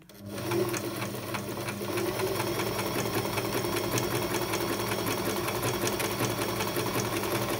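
Singer Tradition electric sewing machine stitching a straight seam at a steady speed: a rapid, even clatter of the needle over the motor's hum. It starts up and comes up to speed within the first second.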